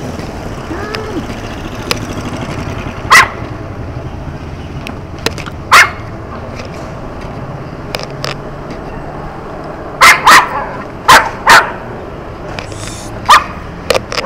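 Dog barking in short, sharp barks: single barks at first, then quicker pairs from about ten seconds in. A steady low rumble runs underneath.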